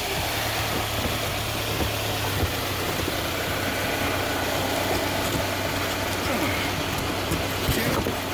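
A vehicle engine running at a steady idle, with a low, even hum.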